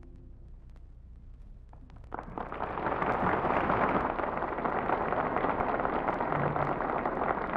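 Crackling hiss and static of an old 1941 radio broadcast recording: faint scattered crackles at first, then about two seconds in a loud, dense crackling hiss swells up and holds steady.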